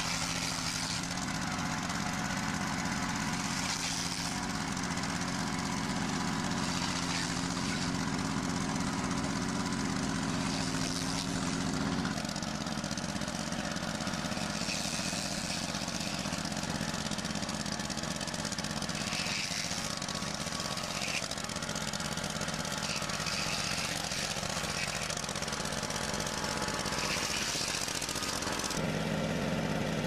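Small engine of a walk-behind Christmas-tree stem-pruning machine running steadily, its note shifting about 12 seconds in, with brief swells of higher hiss.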